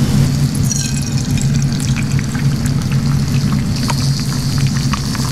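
An egg slipping from a glass bowl into hot oil in a frying pan, then sizzling, with scattered crackles and pops over a steady low hum.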